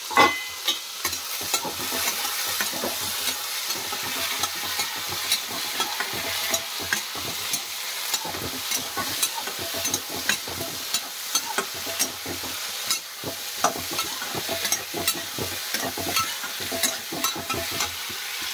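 Green peas frying in oil in a metal kadhai, sizzling steadily while a metal spatula stirs them, scraping and clicking against the pan irregularly. A brief metallic clank with a short ring right at the start.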